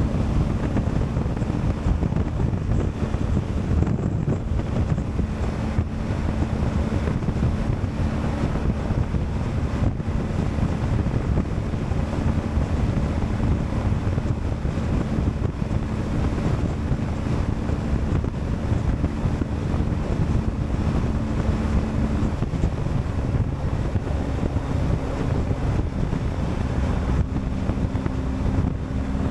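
Heavy wind noise on the microphone from riding at speed, with the BMW R1250GS Adventure's boxer-twin engine running steadily underneath through its Akrapovic exhaust. The engine note shifts about two-thirds of the way through.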